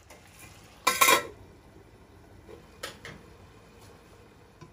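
Metal pan lid clattering onto a frying pan about a second in, ringing briefly, with a lighter clink near three seconds.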